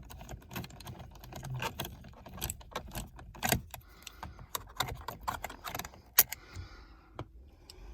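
Irregular clicks and light rattles of a screwdriver turning out the small screws that hold a car's dashboard media screen, with one sharper click about six seconds in.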